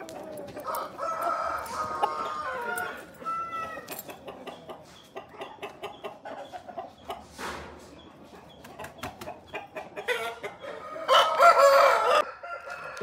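Aseel roosters crowing, with the loudest crow near the end, and short clucks in between.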